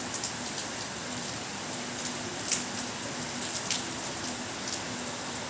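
Steady rain pouring, with individual drops tapping sharply on a surface; one louder drop hits about two and a half seconds in.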